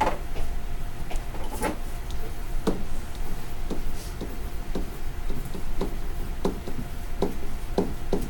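Pen or stylus tapping and scratching on a writing tablet while numbers are handwritten: a string of light, irregular clicks over a low steady hum.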